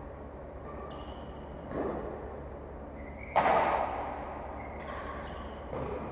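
A loud single thump about three and a half seconds in, with a softer one near two seconds, over a steady low hum.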